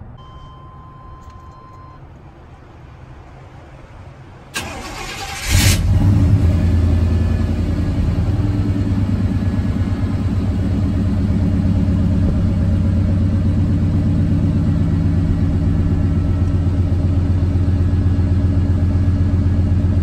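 Car engine cold start: a steady chime tone for the first two seconds, then the starter cranks briefly about four and a half seconds in. The engine catches, flares up, and settles into a steady idle.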